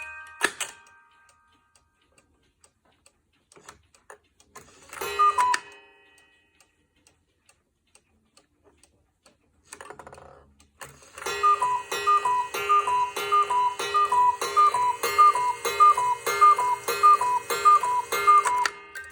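Cuckoo clock with a Regula movement: a music-box tune ends with a click and the clock ticks faintly. About five seconds in, a single two-note cuckoo call sounds from the bellows pipes. From about eleven seconds in, a quick run of roughly a dozen cuckoo calls follows, about two a second, over the whirring and clacking of the striking train.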